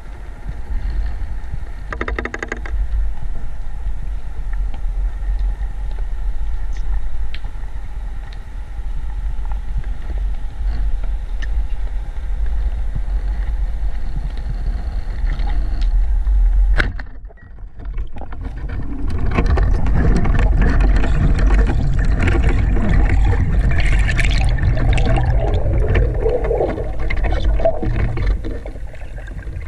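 Underwater sound as picked up by a camera in its housing: a steady low rumble, then after a brief dip a louder rushing and crackling of water and bubbles as the spearfisher swims up toward the surface.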